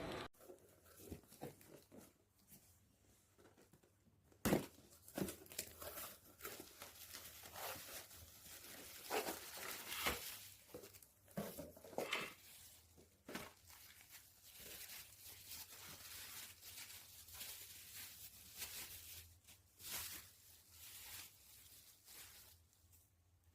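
Irregular rustling and crinkling with scattered sharp clicks, as of objects being handled close to the microphone.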